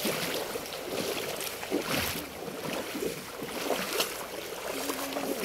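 Feet wading through a shallow river, a splash with each step about once a second, over the steady rush of the flowing water.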